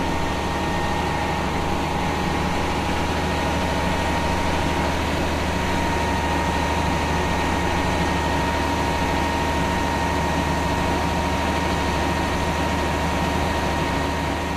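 Garbage truck's engine and hydraulic compactor running steadily as trash is packed into the body: a low drone with a constant high whine over it.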